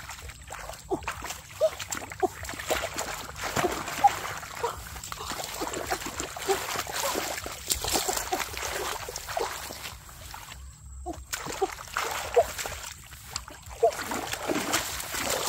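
Hands sloshing and splashing through shallow muddy water while groping along the bottom for fish, in uneven bursts of plops and swishes, with a short pause about eleven seconds in.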